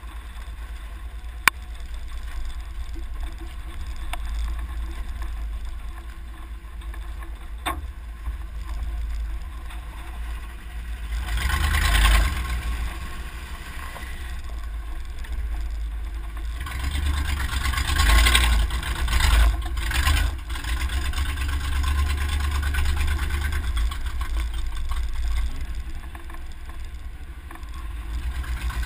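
Truck driving slowly on a rutted dirt trail, picked up by a GoPro mounted on its side: a steady low engine and tyre rumble, with louder rushing swells about twelve seconds in and again around eighteen to twenty seconds, and two sharp knocks in the first eight seconds.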